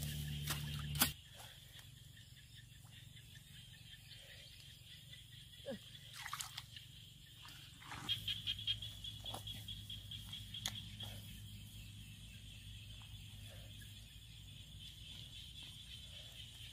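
Faint squelching and soft clicks of wet mud being worked at a mud-crab burrow, first with a metal pipe and then by hand, with a thin steady high tone behind. A low hum is heard for about the first second and then cuts off.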